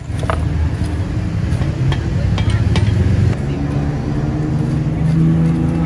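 A motor vehicle's engine running amid road traffic, with a few sharp clicks in the first three seconds.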